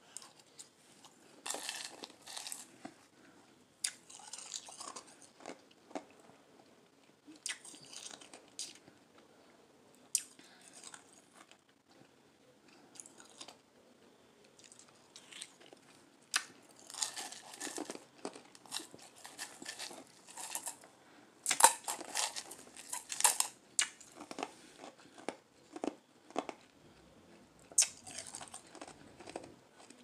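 Crushed ice being bitten and chewed, in irregular bouts of crunching, loudest a little past two-thirds of the way through.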